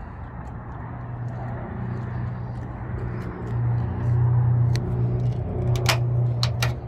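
Steady low hum of a running motor, growing louder about four seconds in, with a few sharp clicks near the end.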